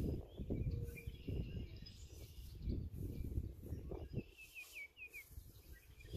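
Small birds chirping, with a quick run of about five short falling notes late on, over an uneven low rumbling noise.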